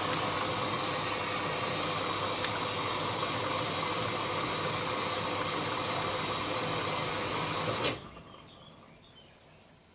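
Miele W1 front-loading washing machine running mid-wash: a steady mechanical hum with a faint whine, which cuts off suddenly with a click nearly eight seconds in.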